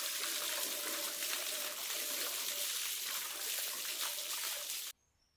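Water from a hose spraying and splattering onto a skinned catfish, a steady hiss of water that cuts off suddenly near the end.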